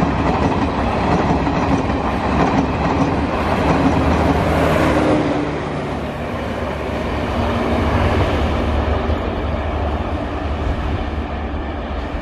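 Passenger coaches of an express train running past at speed, their wheels rumbling and clattering on the track. The sound eases as the last coach goes by about halfway through, then carries on as a fading rumble while the train draws away.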